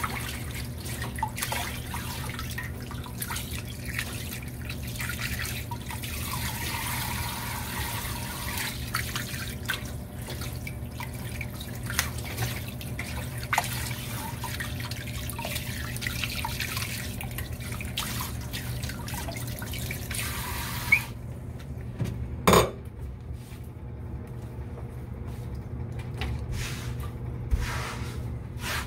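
Water running from a kitchen tap into a sink, with small clicks and knocks of things being handled under it. About three-quarters of the way through the running water stops abruptly, followed by a sharp knock, leaving a steady low hum and a few light clicks.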